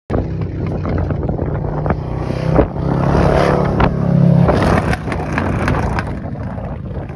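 Toyota Tundra's V8 engine running with the hood up, a steady low engine note that grows louder about three to four and a half seconds in. Wind on the microphone and a few sharp knocks sound over it.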